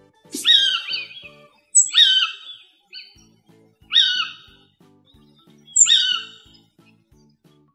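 A bird call repeated four times, roughly every two seconds; each call is short and slides down in pitch. Light background music with a steady beat runs underneath.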